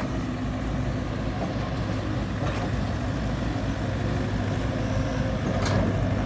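Heavy construction vehicle's diesel engine running steadily with a low hum, with two brief sharp ticks, one about two and a half seconds in and one near the end.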